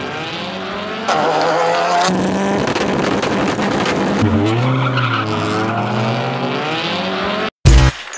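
Race car engine revving, with tyres squealing and skidding. About seven and a half seconds in, loud electronic music with a heavy beat cuts in.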